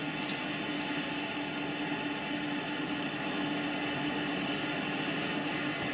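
Farm harvest machinery engine running steadily, a constant drone with a steady hum.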